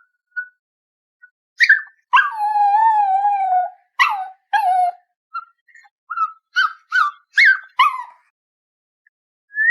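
A dog howling and yelping. After a short yelp comes one long wavering howl, about two seconds in, then a quick run of short yelps that stops a second or two before the end.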